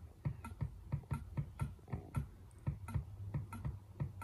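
Rapid computer mouse clicks, about four a second, repeatedly clicking the scroll arrow to page through a stamp list.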